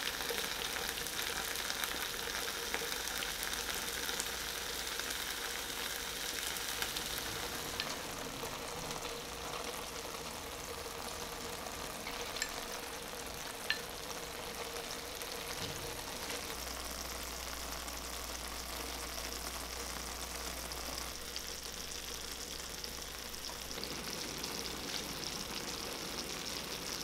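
Spicy dakgalbi (chicken, rice cakes and vegetables in red chili sauce) sizzling steadily in a black pan, with a couple of light clicks about halfway through.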